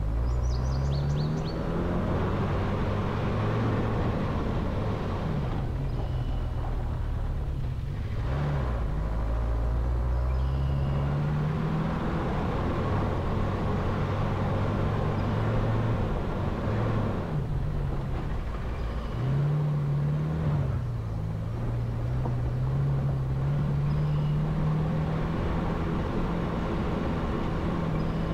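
Motor vehicle driving, heard from on board: the engine runs with its pitch rising and falling several times as the load and revs change, over a steady rumble of road and tyre noise.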